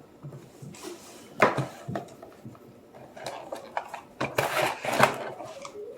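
Padlocks and their packaging being handled: irregular clicks and knocks of hard objects with some rustling and scraping. A sharp knock comes about a second and a half in, and another near the end.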